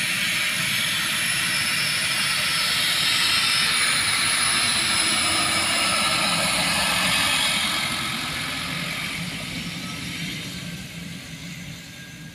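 De Havilland Canada DHC-6 Twin Otter's two turboprop engines running as it taxis past. The high whine drops in pitch about four seconds in as it passes closest, and the sound fades over the last few seconds as it moves away.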